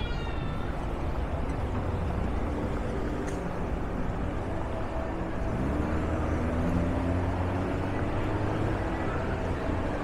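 Road traffic on a city street: a steady hum of vehicles, with one engine rising in pitch as it accelerates from about five and a half seconds in.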